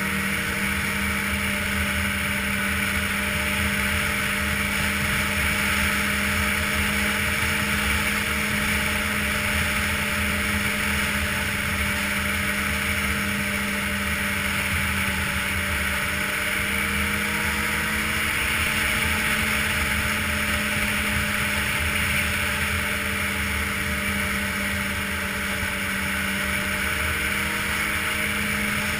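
Ski-Doo touring snowmobile engine running steadily under way, its pitch wavering slightly a few times, over a steady hiss.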